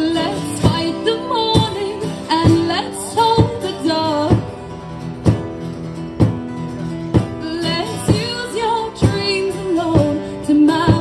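Live acoustic folk-pop song: a female voice singing over strummed acoustic guitar, with a strong stroke on the beat about once a second.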